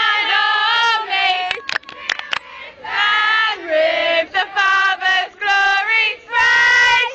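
A group of girls' voices singing loudly together, in short sung phrases broken by brief pauses, with a few sharp knocks or claps about two seconds in.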